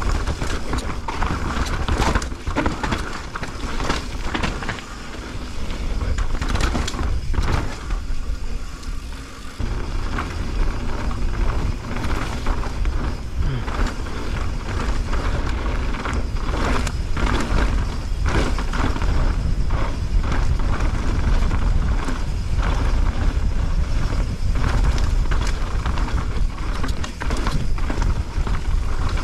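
Mountain bike descending a dirt trail: tyres rolling over the dirt and roots, with frequent knocks and rattles from the bike over bumps and a steady low rumble. The rumble drops away briefly about eight seconds in.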